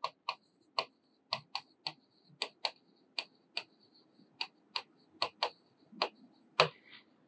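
Chalk tapping and scratching on a chalkboard as words are written: an irregular run of short sharp clicks, several a second.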